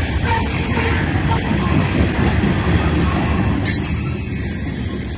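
Loaded coal train's hopper cars rolling past: a steady rumble of steel wheels on the rails, with a thin high wheel squeal above it that grows louder about three and a half seconds in.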